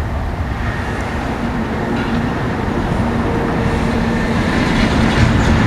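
Wind buffeting the microphone in a loud, continuous low rumble, with a faint steady hum through the middle.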